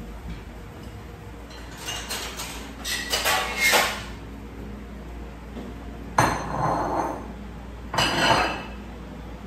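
Dishes and utensils clinking and clattering as they are handled: a run of small clinks a couple of seconds in, then two louder clatters about six and eight seconds in.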